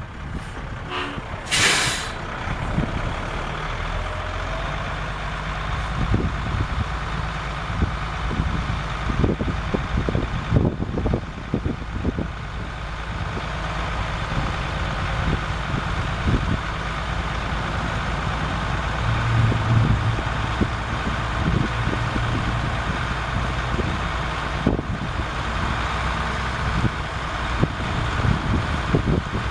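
Cummins ISC 8.3-litre inline-six diesel running steadily while its hydraulics fold the 60-foot spray boom, with scattered knocks from the boom mechanism. A short hiss of air comes about two seconds in.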